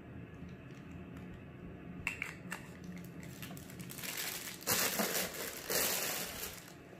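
Clear plastic wrapping crinkling as it is pulled off a camera lens and handled. A few small clicks come first, and the crinkling is loudest from about four seconds in until shortly before the end.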